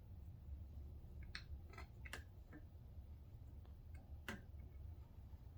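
A few faint, sharp clicks and taps from hands working on rug fringe yarns, the loudest a little after four seconds in, over a low steady hum.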